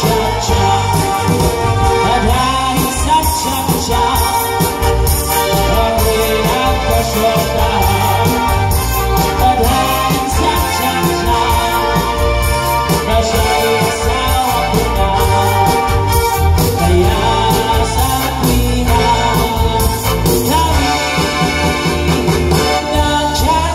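Live band playing amplified music through PA speakers: a singer over electric guitars, bass and a keyboard with an organ-like sound, with a steady beat.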